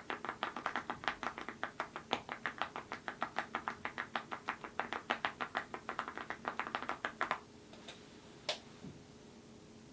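Rapid typing on a mechanical keyboard fitted with full-metal keycaps and linear switches, a fast run of sharp key clacks. The typing stops about seven seconds in, with one last single keystroke about a second later.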